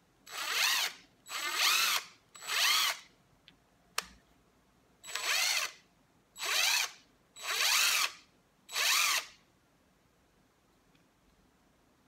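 DeWALT DCF880 18 V cordless 1/2-inch impact wrench spinning with no load in seven short trigger pulls, three and then four after a pause. Each is a whine that rises and falls as the motor spins up and winds down. A single sharp click falls between the two groups.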